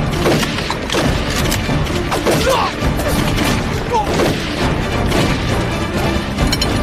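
Film battle sound mix: gunfire and explosions with brief shouted voices, over a dramatic music score.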